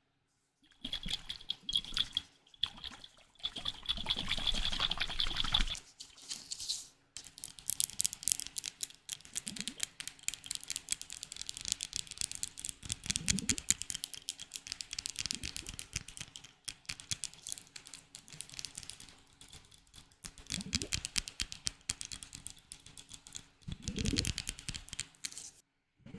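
Slime being squeezed and worked by hand, giving a dense, wet crackling of many small pops and clicks that comes and goes in bouts.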